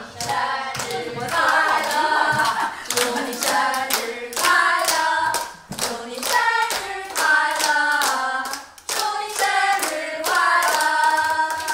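A group of women singing a song together while clapping along in a steady rhythm, about three claps a second.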